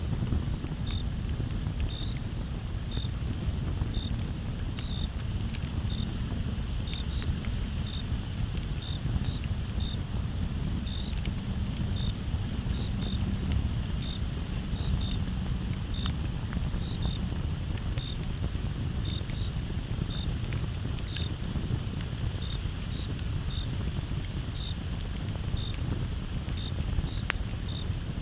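Campfire crackling, with scattered small sharp pops over a low steady rumble, and crickets chirping: a steady high trill, with one cricket giving short chirps about once or twice a second.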